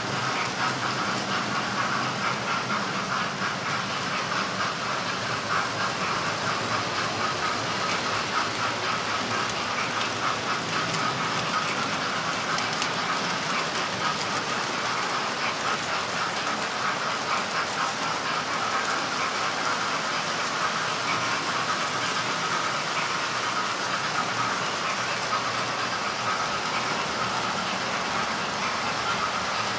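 Model railway trains running on the layout: a steady whir of small locomotive motors with the wheels rattling and ticking along the track.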